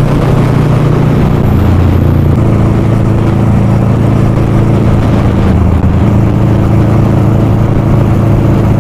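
Motorcycle engine running steadily at cruising speed, under a constant rush of wind and road noise. The engine note drops briefly about a second and a half in, then settles back.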